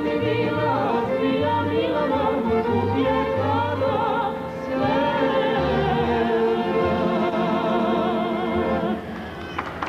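A man and a woman singing a folk-song duet over a folk orchestra with accordion, their held notes wavering. The song ends about nine seconds in, and applause starts just before the end.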